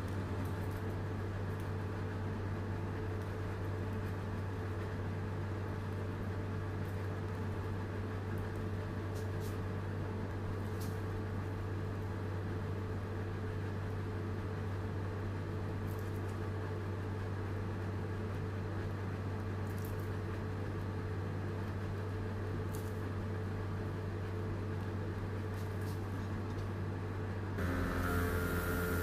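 Steady low hum from a machine or electrical appliance, with a few faint ticks. Music comes in near the end.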